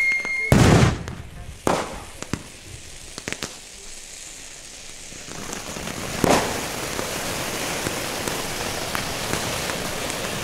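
Weco Zauberwürfel ground firework: a falling whistle cuts off in a loud bang about half a second in, then a second bang and a few small pops. From about five seconds in it sprays a fountain of sparks with a steady crackling hiss, and another bang comes about six seconds in.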